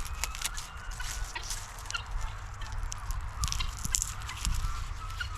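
Guinea fowl chirping, many short calls overlapping, as the flock gathers round wanting to be fed.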